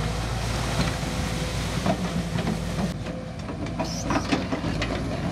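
CASE CX210C hydraulic excavator's diesel engine running steadily, with a clatter of sharp knocks from the digging that grows thicker in the second half.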